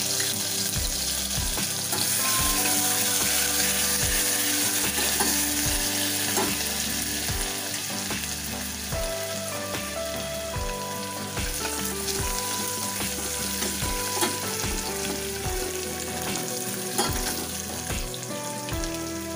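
Crushed ginger, garlic and green chilli sizzling steadily in hot oil in a stainless steel pot, along with mustard seeds, cumin, fenugreek seeds and curry leaves: the tempering (tadka) for kadhi.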